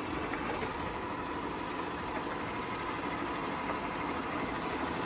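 Shark Matrix robot vacuum running: a steady motor and suction hum with a faint steady whine.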